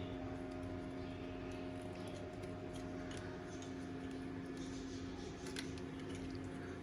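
Scattered small clicks and snips of hand tools working apart the joints of an ignition coil wiring connector, over a steady low hum.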